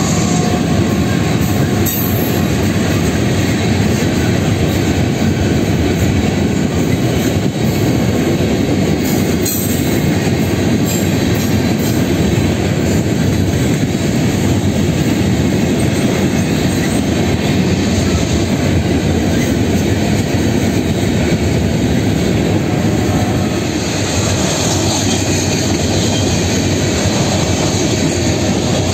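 Freight train of hopper cars rolling past close by: a steady, loud rumble of steel wheels on the rails.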